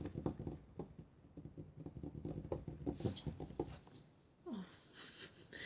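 Light, irregular tapping and clicking close to the microphone, several taps a second, with a short hiss about three seconds in.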